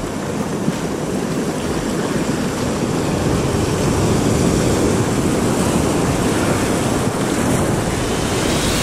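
Sea surf washing over shore rocks close by: a steady rush of foaming water that grows slowly louder, with wind buffeting the microphone.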